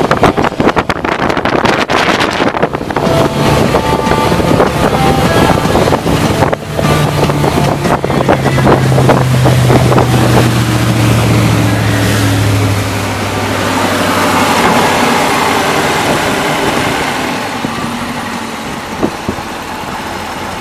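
Malibu Wakesetter 25 LSV's supercharged LT4 V8 running under way, with wind buffeting the microphone. From about a third of the way in, the engine note falls steadily as the throttle comes back, then settles to a quieter, lower run.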